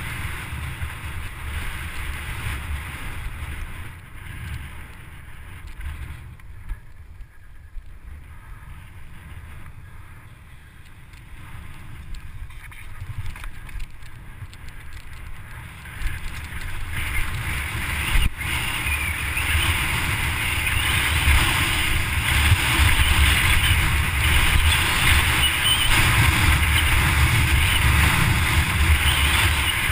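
Wind buffeting a helmet-mounted camera and the tyres of a downhill mountain bike rumbling and rattling over a dirt trail. It is quieter in the middle stretch and louder and denser from about halfway on, with one sharp knock about 18 seconds in.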